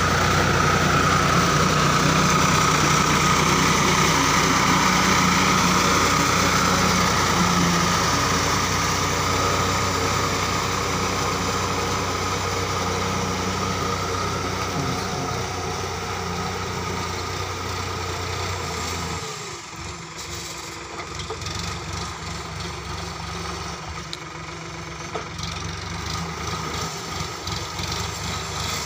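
Tractor diesel engine running steadily while it pulls a rotary tiller through wet paddy mud. The sound fades gradually as the tractor moves off, dropping further about two-thirds of the way through.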